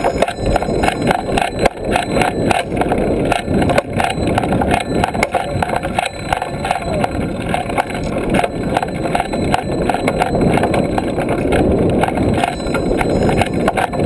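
Wind buffeting and tyre rumble on a handlebar-mounted action camera riding on a moving trail-a-bike: a loud, uneven rushing noise with frequent gusty jumps.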